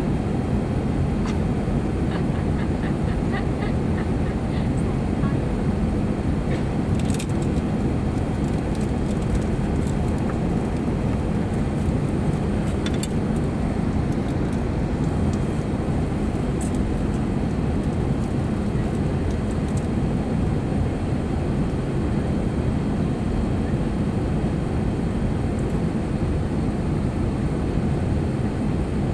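Steady cabin noise of a jet airliner in flight, engine and airflow noise heard from inside the cabin, with a few faint clicks about 7 and 13 seconds in.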